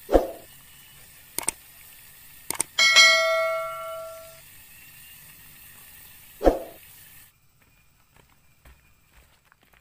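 Edited-in intro sound effects: a few sharp hits, then a quick double click and a bright notification-bell ding that rings and fades over about a second and a half, then one more hit. Near the end the effects cut off, leaving faint outdoor sound with a few soft ticks.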